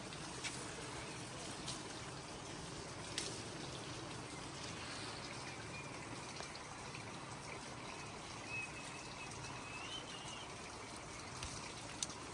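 Steady outdoor background hiss, like a trickle of water or wind in foliage, with a few soft clicks scattered through it.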